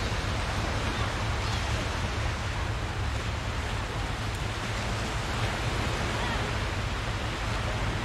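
Beach ambience: steady surf and wind noise, with faint children's voices calling out now and then in the distance.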